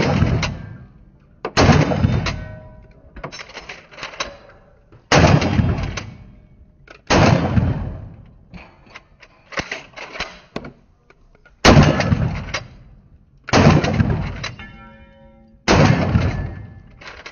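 Pump-action shotgun fired repeatedly: about seven loud blasts at uneven intervals of two to four and a half seconds, each ringing out for about a second.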